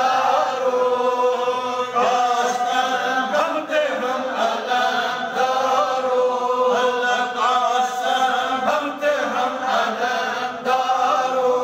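Voices in steady Islamic devotional chanting, the notes drawn out and running on without a break.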